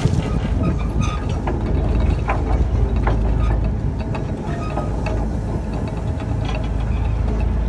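A large fishing boat's engine running with a steady low rumble, with scattered light knocks and clinks.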